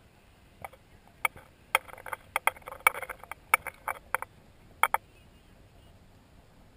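Handling noise from a wide-angle action camera's housing: a run of irregular sharp clicks and knocks, about a dozen over some four seconds.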